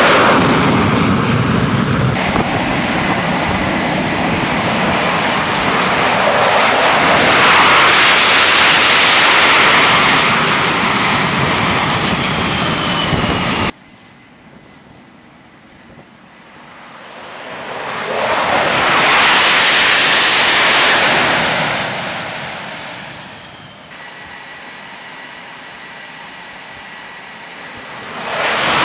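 Jet fighter engines running at high power on a carrier flight deck, a dense blast of noise with a steady high-pitched whine. After an abrupt drop to quieter sound, a jet's noise swells up and fades away over a few seconds, then a quieter engine whine rises again near the end.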